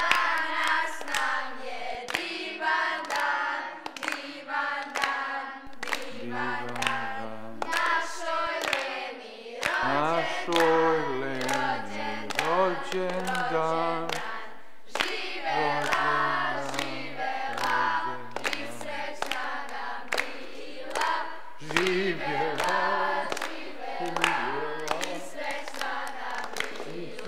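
A group of voices singing a birthday song together, with steady rhythmic hand clapping and stepped low notes underneath.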